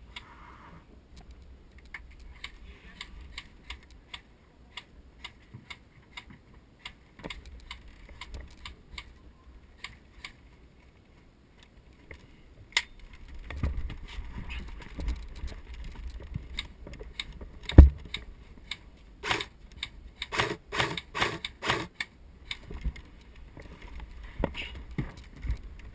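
Airsoft guns firing: scattered sharp clicks and pops, with a quick run of shots about twenty seconds in. A single heavy thump stands out just before that run.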